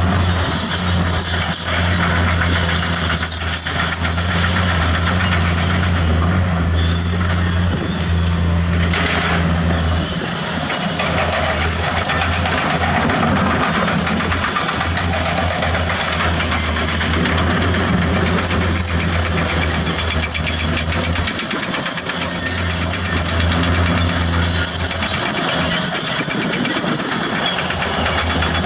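Tracked heavy equipment working: a diesel engine running with a steady low drone, under the clanking and squealing of steel crawler tracks, with a thin high whine throughout. The engine drone dips briefly twice.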